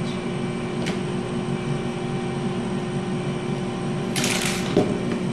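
Steady mechanical hum of a CNC laser engraver left running after its job. About four seconds in there is a short, bright plastic rattle from a clear spiral binding coil being handled, with a light knock just after it.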